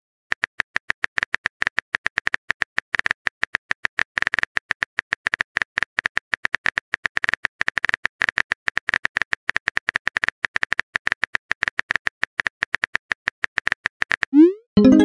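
Phone keyboard typing sound effect: a quick, steady run of key clicks, about six a second, as a message is typed. Near the end, a rising swoosh as the message is sent.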